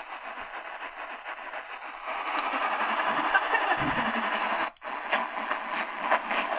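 Realistic DX-380 portable radio on the AM medium-wave band, putting out steady static and hiss between stations, with only a faint, unreadable trace of a weak station. The sound cuts out for an instant a little under five seconds in.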